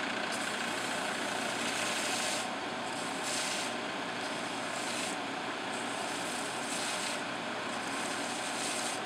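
Belt sander running steadily while a pin lift is pressed against the sanding belt at the roller in about five short spells, each adding a rasping grind over the motor noise.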